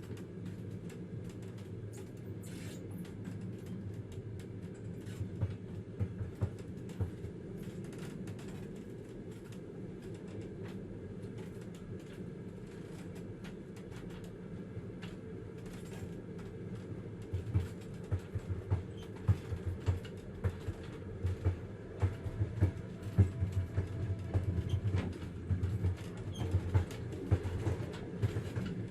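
Inside a moving train carriage: a steady low rumble of the running train, with scattered clicks and knocks from the wheels and carriage. The knocks grow louder and more frequent a little past halfway.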